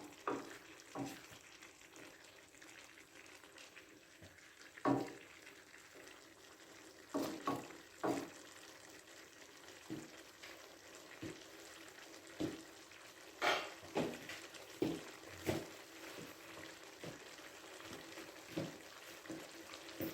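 A pan of chicken and vegetable stir fry cooking with a steady hiss. Irregular clicks and knocks of a utensil against the pan come as it is stirred, and the loudest fall about five seconds in and again around thirteen to fifteen seconds.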